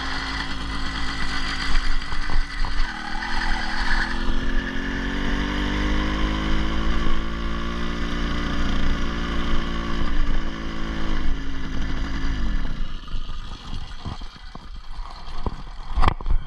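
80cc two-stroke motorized-bicycle engine running, its pitch rising and falling a little, then winding down and stopping about twelve seconds in. A few light knocks and clatter follow.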